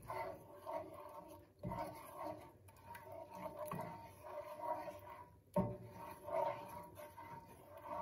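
Wooden spatula stirring and scraping thick cornmeal-and-milk sawmill gravy around a cast iron skillet in repeated strokes, with two sharper knocks of the spatula against the pan.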